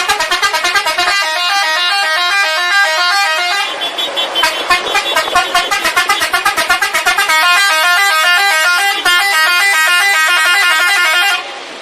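Musical vehicle horn playing a fast tune, its notes changing pitch in quick steps, then cutting off suddenly near the end.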